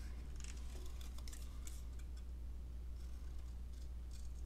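Small craft scissors snipping through a stamped piece of card, several quick snips in the first couple of seconds and a few more after, over a low steady hum.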